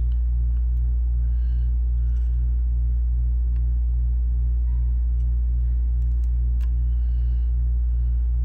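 Steady low electrical hum with a regular throb about three times a second, and a few faint clicks over it.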